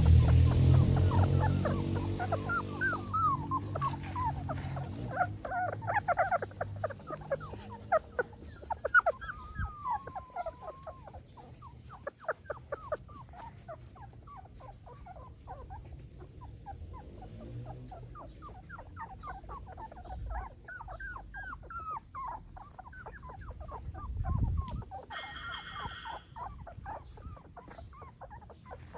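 Young golden retriever puppies whimpering and squeaking: many short high cries in quick succession, with one longer wavering whine about ten seconds in. Low music fades out over the first few seconds.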